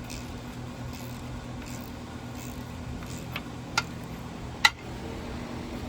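Wrench working a broken exhaust-manifold bolt out of an aluminum cylinder head: a few sharp metal clicks a little over three seconds in, the third and loudest about a second later, over a steady low hum.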